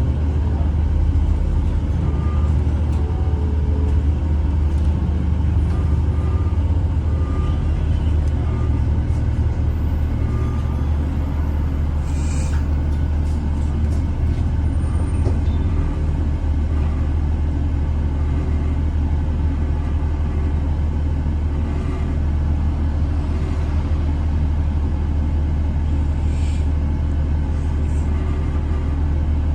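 Bus engine running with a steady low rumble, with short high metallic tones now and then in the first third: the awful metallic noise this bus makes. A brief hiss about twelve seconds in, like an air brake release.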